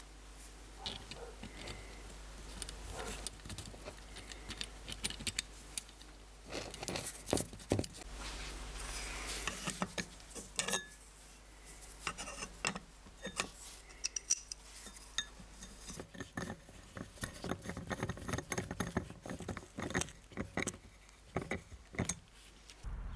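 Light metallic clicks and clinks of small steel parts being handled and fitted together as a hand drill's crank arm and gear wheel are reassembled, coming thicker near the end.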